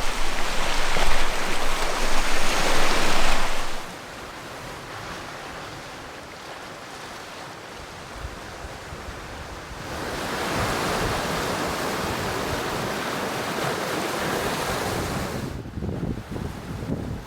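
Waves washing onto the shore of a rough, whitecapped lake, with wind on the microphone. The sound is loud for the first few seconds, drops, then rises again for several seconds from about ten seconds in.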